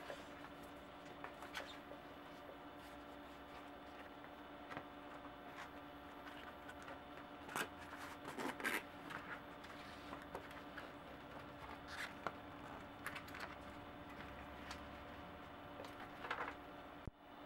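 Faint rustling and scattered clicks as a Maxxis cyclocross tyre and its inner tube are worked onto a Velocity bicycle rim by hand, over a steady background hum. The handling noises are loudest about halfway through.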